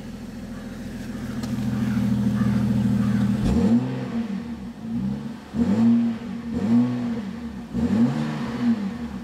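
BMW X3 35i's turbocharged inline-six engine idling steadily, then revved in a series of quick blips about a second apart from about three and a half seconds in, each rise and fall in pitch.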